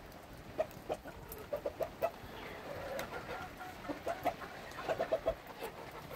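Chickens clucking: short clucks, some single and some in quick runs of three or four.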